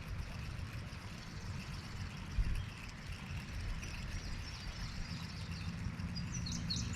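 Low, uneven rumble of wind buffeting the microphone outdoors, with a few birds chirping briefly near the end.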